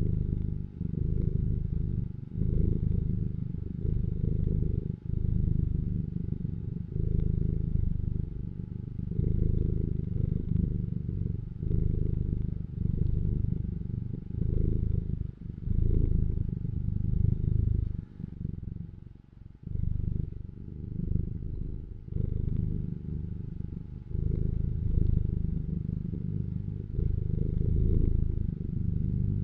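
Domestic cat purring, a low purr that swells and dips with each breath, with a brief pause about two-thirds of the way through.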